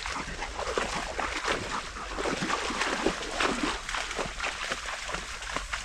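Footsteps sloshing and splashing through shallow swamp water, with vegetation brushing against clothing, in an uneven walking rhythm.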